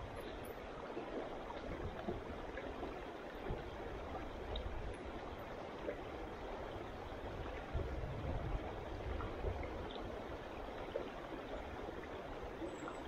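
Mountain trout stream flowing over rocks: a steady rush of running water.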